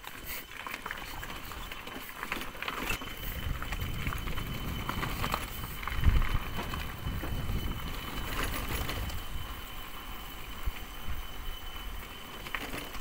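Motorcycle riding along a rough dirt and gravel track: low wind and road rumble with frequent knocks and rattles from tyres and bodywork over stones, and a heavy bump about six seconds in.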